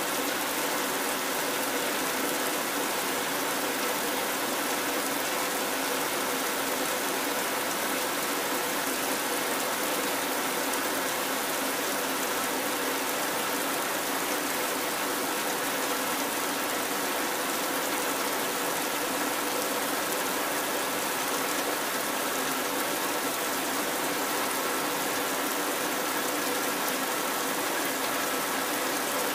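Heavy rain falling steadily: an even, unbroken rushing hiss that does not change.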